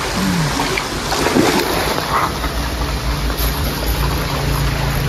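Water splashing and churning as a big hooked fish thrashes at the pond surface, with wind buffeting the microphone as a low rumble.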